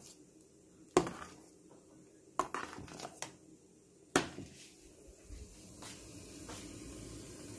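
Ladle knocking against the side of a cooking pot while stirring, with several sharp clinks, the loudest about one second and four seconds in. From about five seconds, a steady low hiss of steam from a steamer pot on the stove.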